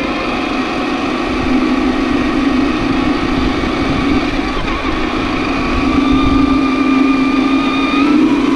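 Electric motor and gear drive of a 1/10-scale RC4WD Desert Runner truck whining steadily as it drives, the pitch creeping up near the end, over a steady hiss.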